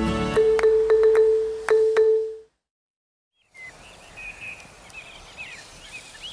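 Music with plucked, struck notes ends on a held note, followed by about a second of silence. Then birds chirp in short, rising and falling calls over faint outdoor background noise.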